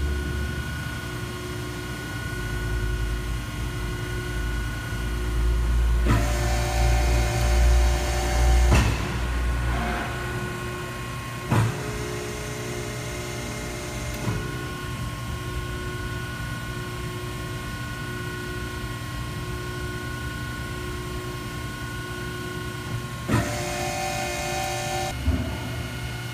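Cincinnati 135CB hydraulic CNC press brake running, with the steady hum of its hydraulic pump and motor. It grows louder and busier for a few seconds about six seconds in and again near the end, and there are a few sharp clunks.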